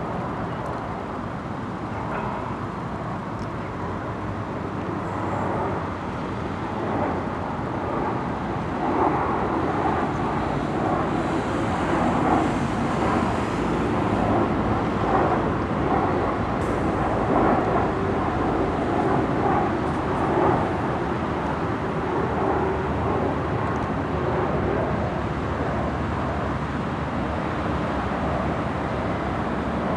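Boeing 737 airliner on approach with its landing gear down, its jet engines giving a steady rumbling roar that grows louder over several seconds as it comes nearer. Road traffic noise runs underneath.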